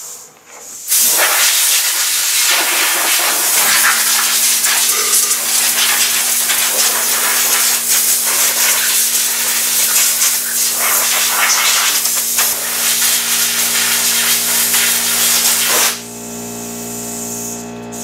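Compressed-air blow gun hissing in long, loud blasts, blowing dry fire-extinguisher powder off an engine; it starts about a second in and stops shortly before the end. About four seconds in, a steady low hum starts underneath and carries on after the hiss stops.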